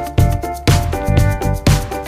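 Background music: an upbeat electronic/funk track with a steady beat of about two hits a second.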